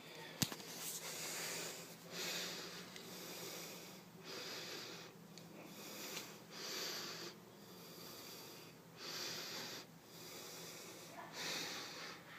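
Person breathing close to the microphone: a steady run of noisy breaths in and out, about one a second, with a single sharp click about half a second in.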